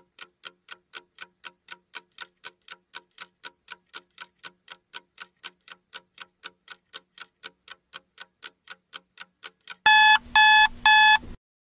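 Quiz countdown-timer sound effect: clock ticking at about four ticks a second, then three loud alarm beeps as the timer reaches zero.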